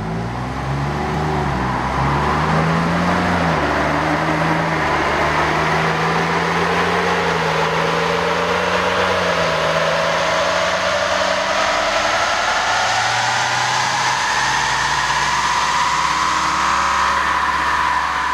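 Ford Bronco on a chassis dynamometer with its stock exhaust, running under load in one long pull, its pitch rising steadily as the revs climb for about fifteen seconds over a steady low hum.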